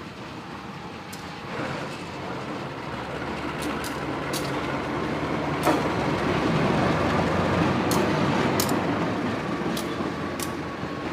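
A train passing on the track, its rumble building to a peak about halfway through and easing off near the end, with scattered sharp clicks.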